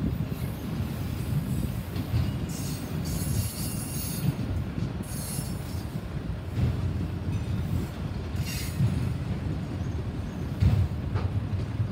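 Freight train's autorack cars rolling past: a steady rumble of steel wheels on rail, with high-pitched wheel squeals coming and going several times and a louder clunk near the end.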